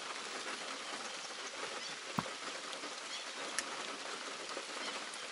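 Light rain pattering steadily on water and mud, with two short sharp ticks, one about two seconds in and another over a second later.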